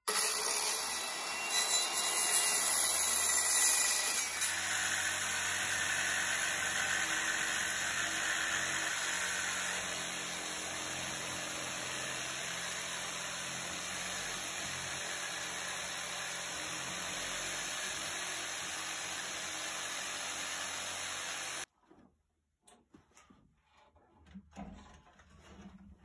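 Electric circular saw cutting through pallet wood for about four seconds, followed by a steady power-tool drone that cuts off suddenly about 22 seconds in. After that come only faint knocks of wood being handled.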